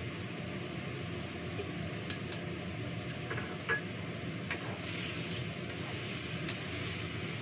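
Chopsticks and a small ceramic bowl clinking several times, in short sharp knocks, over a steady low kitchen hum.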